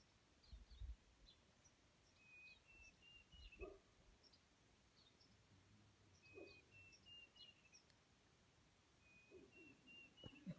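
Faint wild birdsong: a phrase of four or five short whistled notes, each a little higher than the last, repeated three times about three and a half seconds apart, with scattered brief high chirps. A few soft low bumps sound in the first second.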